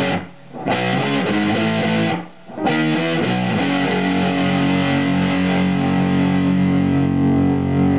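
Electric guitar played through a Danelectro Cool Cat Fuzz pedal, fuzz at about half gain with a clean boost added: a few short fuzzed chord phrases broken by two brief gaps, then one chord held and ringing on from about three and a half seconds in. The tone is a little bright.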